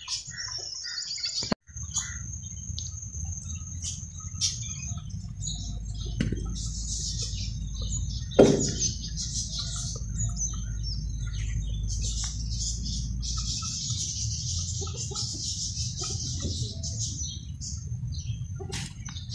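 Birds chirping and twittering over a thin, steady high tone and a low rumble. One loud, short falling sound comes about eight seconds in.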